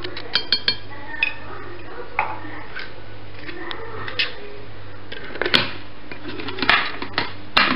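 Light clicks and knocks of a plastic measuring spoon against a glass blender jar as an ingredient is tipped in, then the lid fitted on the jar. The loudest knocks come about five and a half seconds in and near the end.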